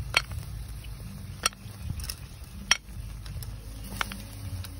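Grilled apple snail shells clinking as they are set down with metal tongs onto a ceramic plate, in about six sharp, separate clicks spaced roughly a second apart.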